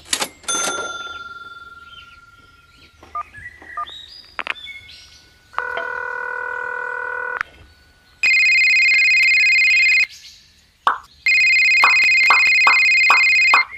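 Electronic sound effects: a short chime-like ring at the start, a buzzy pitched tone around the middle, then two loud, shrill, trilling tones of about two seconds each, like a telephone ringing.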